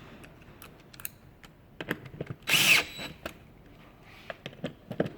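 Power drill briefly driving a chair screw home, one short burst about two and a half seconds in, amid scattered small clicks and knocks of handling.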